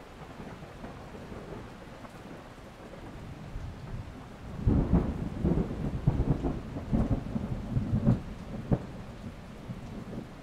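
Thunderstorm: a steady hiss of rain, then about halfway in a thunderclap breaks into a crackling, rolling rumble that lasts about four seconds before easing off.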